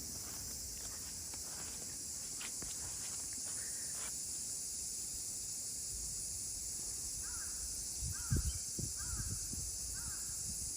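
A crow cawing in a series, about six caws a little under a second apart in the second half, over a steady high hiss. A few low thumps come in alongside, the loudest shortly after the caws begin.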